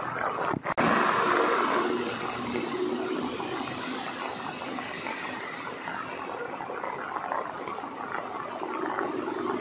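Heavy rain falling on a city road, a steady rushing hiss, mixed with traffic on the wet surface. The sound cuts out briefly twice just after the start.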